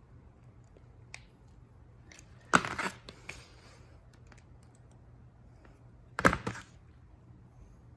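Hands and tools handling the starter's wiring and terminal hardware: a faint click about a second in, then two short rustling clatters about three and a half seconds apart.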